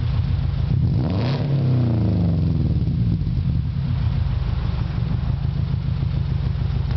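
Subaru Impreza RS flat-four engine idling through Borla headers, the stock cat and a custom 2.5-inch straight-pipe catback with a stainless muffler. It is given a brief rev about a second in, then settles back to a steady idle.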